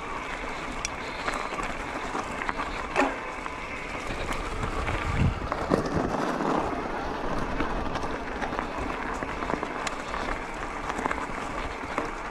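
Electric mountain bike ridden uphill: a steady rolling noise from the tyres on the track, with occasional sharp clicks and knocks from the bike, and wind on the microphone.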